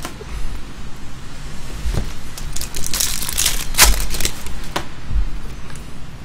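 Foil wrapper of a trading-card pack crinkling and tearing as it is opened by hand, with irregular crackles, busiest about three to four seconds in.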